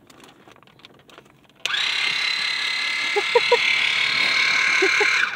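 Cordless handheld water flosser (Water Pik-type oral irrigator) switched on about a second and a half in, its small pump motor running with a steady high-pitched buzz, then switched off just before the end.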